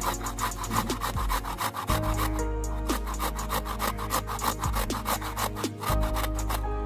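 A peeled garlic clove rubbed quickly back and forth across a small stainless-steel grater, a rapid rasping scrape of several strokes a second.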